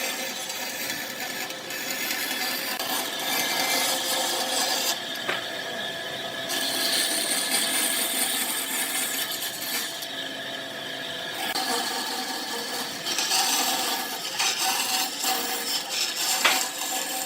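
Wood lathe running while a turning tool scrapes and cuts the spinning wood, a continuous rasping sound over a steady hum. The cutting noise thins out twice, briefly, as the tool eases off.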